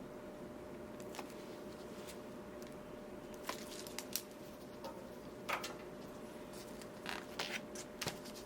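Stained glass soldering work: a scattering of short, soft clicks and scrapes of tools and glass being handled, coming in the second half, over a steady low hum.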